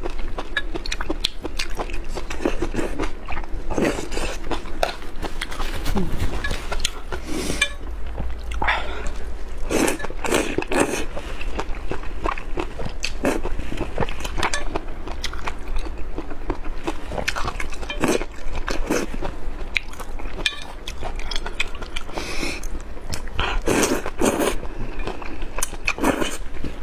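Close-miked slurping and chewing of hot and sour glass noodles (suan la fen): repeated short, wet slurps and mouth noises.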